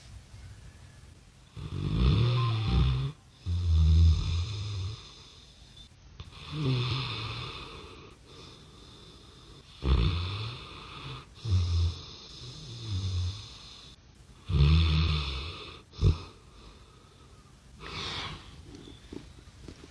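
A sleeping dog snoring: a run of deep snores every few seconds, some drawn in two parts, that sound strikingly like a human snoring.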